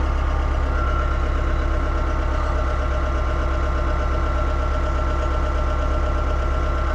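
Mahindra 2638 compact tractor's diesel engine running steadily, with a thin high whine setting in about a second in.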